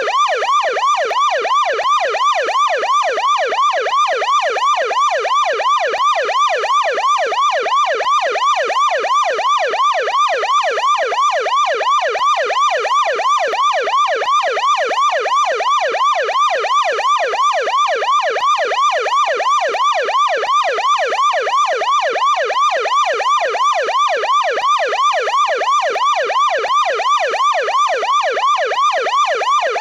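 American police car siren in deep-toned yelp mode: a fast rising-and-falling wail, about three sweeps a second, repeating steadily without a break.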